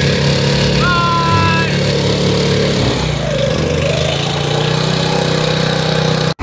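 Motorboat engine running steadily under way.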